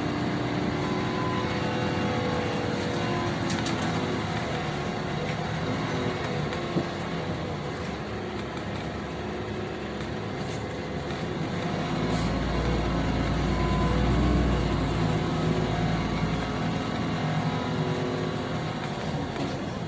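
Interior ride noise of a LiAZ-5292.65 city bus under way: engine and road noise, getting louder about twelve to fifteen seconds in as the engine pulls harder.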